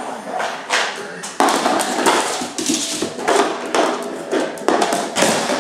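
Green plastic container knocking and scraping along a laminate floor as a puppy shoves it with its muzzle: a string of irregular taps and skids.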